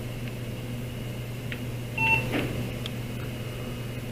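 Steady hum of running computer equipment, with a single short electronic beep about two seconds in.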